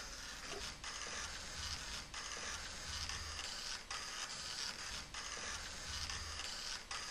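Lego car's small electric motor whirring steadily through plastic gears as it drives in reverse, dropping out briefly a few times.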